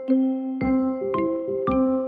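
Background music: a light, bouncy tune of pitched notes over a steady beat.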